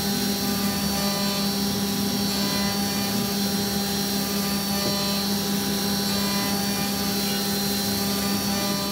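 2007 Haas VR-8 five-axis CNC vertical mill running, a steady machine hum with fainter high tones and hiss over it.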